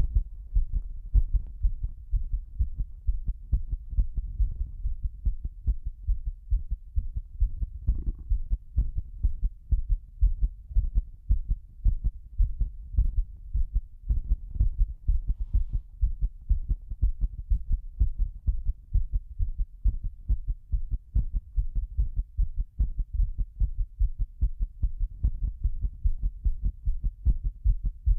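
A person's heartbeat pounding, recorded close up: a fast, even rhythm of low thuds.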